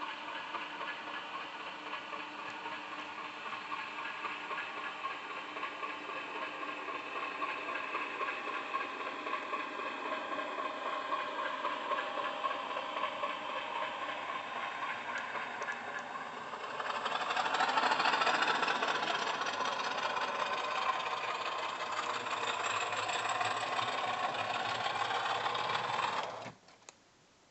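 Model locomotive's DCC sound decoder playing a Class 50 'Hoover' diesel engine sound, running and accelerating, louder from about two-thirds of the way in as the engine notches up. Near the end the sound cuts off suddenly, the sign of the locomotive stopping dead on wrongly set points.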